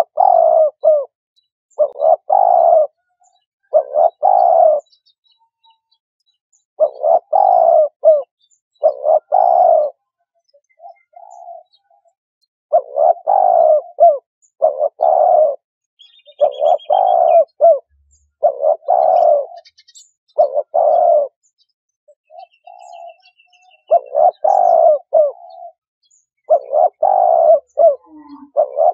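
Spotted dove cooing: the same short phrase of a few low coos, each phrase about a second long, repeated every second or two with brief pauses. Faint high chirps from another small bird come in twice around the middle.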